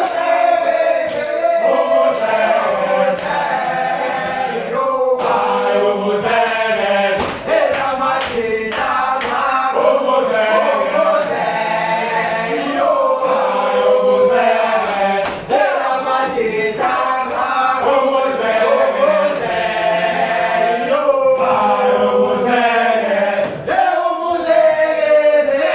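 A group of voices singing a chant-like song together, led by men's voices, with sharp beats about once a second.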